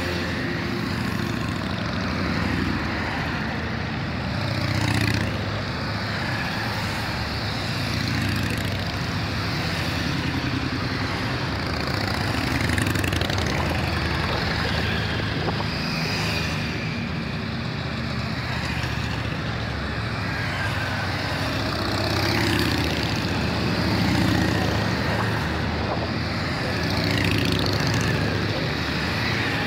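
A procession of motorcycles of mixed kinds (sport bikes, cruisers, touring bikes) riding past one after another. Their engines run without a break, rising and falling in pitch as each bike accelerates past.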